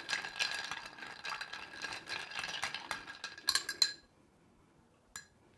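Bar spoon stirring ice cubes in a cocktail in a glass mixing glass: a rapid, steady clatter of ice against the glass. A few louder clinks come just before four seconds in, then it stops.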